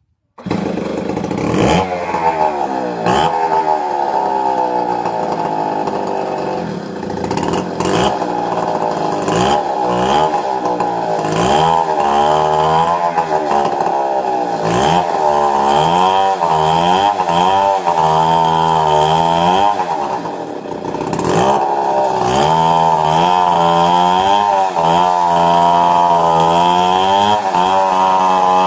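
Stihl 070 two-stroke chainsaw running at high revs, its engine speed repeatedly sagging and climbing again. Sharp knocks come through now and then.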